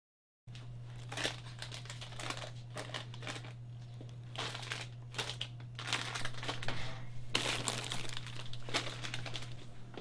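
Plastic snack-chip bags crinkling and rustling in repeated bursts as they are handled and stocked on a wire rack, starting about half a second in, over a steady low hum.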